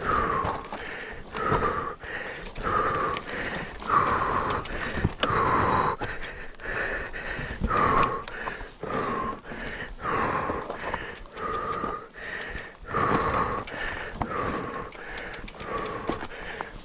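A cyclist panting hard from exertion, one heavy breath about every second, close to the microphone. Scattered sharp knocks and clicks sound between the breaths.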